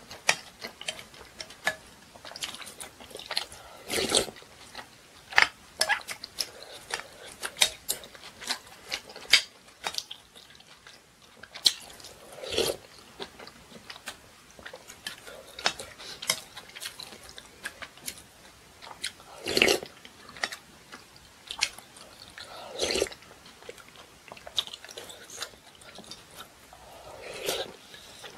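Close-miked eating of rice-cake dumpling soup: chewing, with a plastic spoon clicking and scraping against a glass bowl. About five louder mouth sounds come a few seconds apart.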